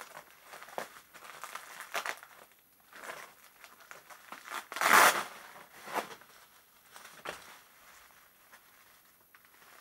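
Plastic wrapping and bubble wrap crinkling and rustling as hands pull it off a taped package, in irregular bursts with the loudest about five seconds in.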